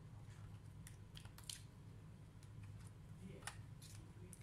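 Faint scattered clicks and scratchy handling noises as parts are worked on inside an opened laptop, over a steady low hum.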